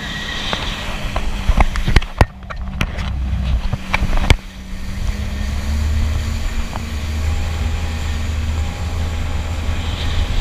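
Yamaha jet ski engine running steadily under way, with water rushing and wind on the microphone. Several sharp knocks between about one and a half and four and a half seconds in.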